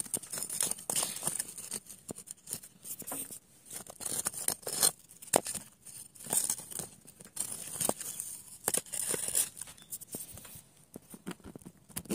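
Irregular crunching and scraping close to the microphone, footsteps on loose dirt and concrete rubble, in quick uneven crackles with no steady rhythm.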